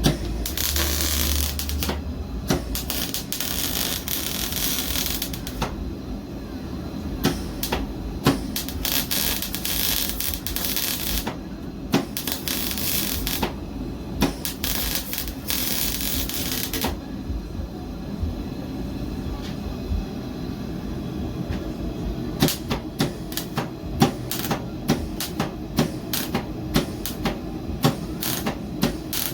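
MIG welder arc crackling in four runs of two to four seconds each. Near the end comes a quick string of sharp clicks or taps.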